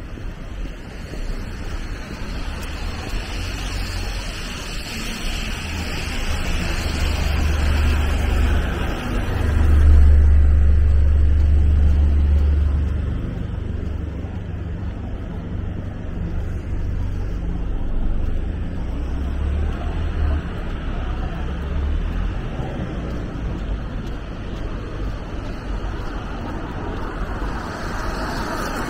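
City street traffic ambience: a low rumble, as of a passing vehicle, swells to its loudest about ten seconds in, then eases back to a steady background.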